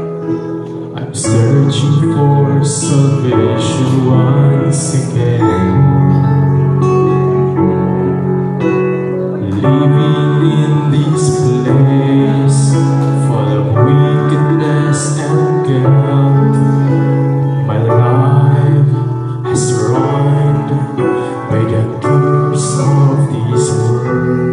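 A young man singing a slow worship song into a microphone over instrumental accompaniment.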